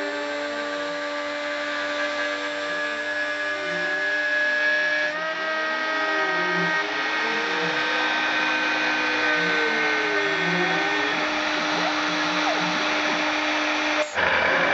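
Desktop CNC milling machine running: the spindle gives a steady whine, while the axis drive motors rise and fall in pitch over and over as the axes speed up and slow down. The sound breaks off briefly near the end.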